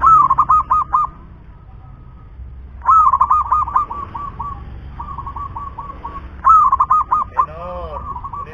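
Caged zebra dove (perkutut) singing: three loud bursts of rapid, staccato cooing notes, about three seconds apart.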